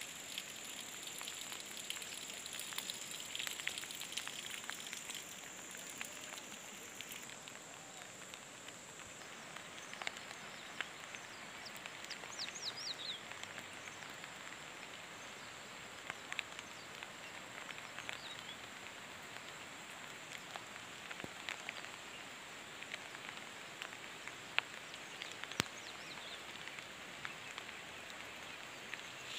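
Light rain falling, a steady even patter with many single drops ticking through it. A thin steady high tone runs through the first several seconds and then fades, and a few short high chirps come about twelve seconds in.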